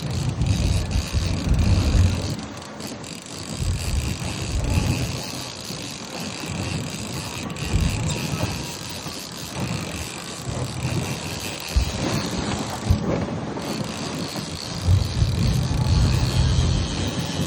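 Wind gusting on the microphone in bursts, over a steady high mechanical whine, with some faint clicking from gear on the boat.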